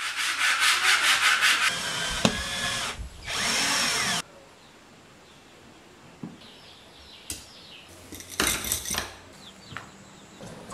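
A stiff brush scrubbing a wooden cutting board in rapid back-and-forth strokes, followed by a few short, loud household handling sounds with a quieter stretch between them.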